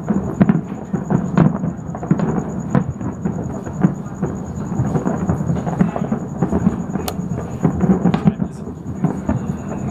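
Distant fireworks going off all over the city: many sharp pops and booms, one after another, merging into a continuous rumble.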